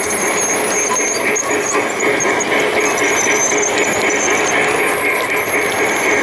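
G-scale model train heard from a camera car riding in its consist: steady rolling noise of the wheels running over the track, without pauses.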